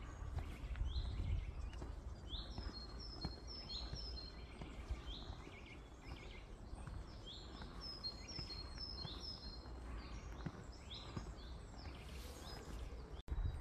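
Several woodland songbirds singing, with short, repeated downward-slurred notes and quick higher runs of notes, over a faint low rumble.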